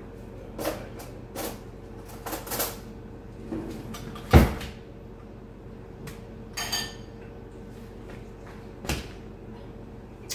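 Kitchen drawer and utensil handling: a few light clatters, then a heavy knock a little over four seconds in as the drawer is pushed shut, the loudest sound. A short rattle near seven seconds and another knock near nine seconds follow.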